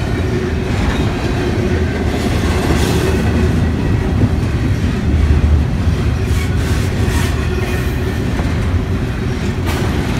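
Double-stack intermodal freight train passing close by: a steady heavy rumble of loaded well cars rolling on the rails, with a few sharper clacks of wheels over rail joints.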